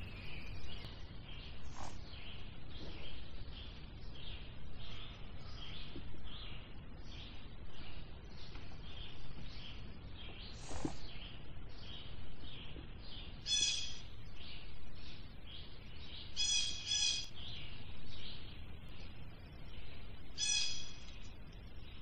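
Woodland birds calling: a steady series of short high chirps about two a second, with a louder, lower call ringing out several times in the second half.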